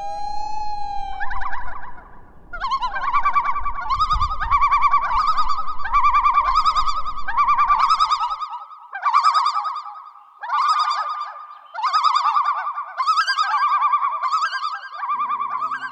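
Common loon giving its yodel call: a rising wail that climbs into a long run of repeated, wavering phrases. A low rumble sits underneath for about the first half.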